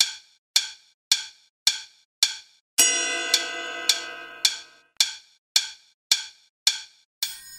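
Sparse percussive soundtrack: a sharp, dry click repeating evenly a little under twice a second, like a metronome. About three seconds in, a metallic ringing chime sounds over the clicks and fades over a second or two.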